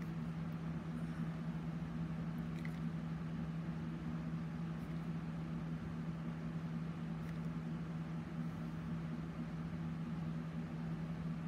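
A steady low machine hum, unchanging, with a few faint small clicks.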